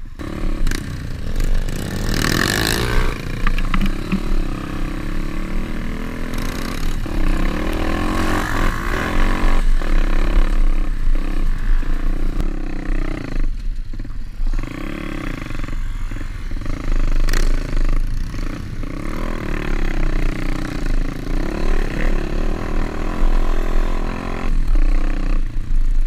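Pit bike's single-cylinder four-stroke engine running while riding, its pitch repeatedly rising and falling as the throttle is opened and closed.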